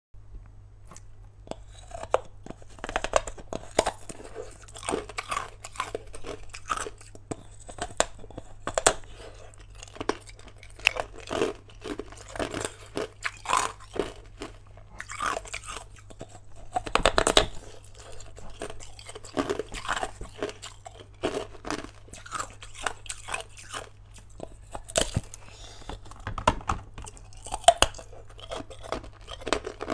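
Hard ice being bitten and crunched between the teeth, an irregular run of sharp cracks with a louder burst of crunching about halfway through. A low steady hum runs underneath.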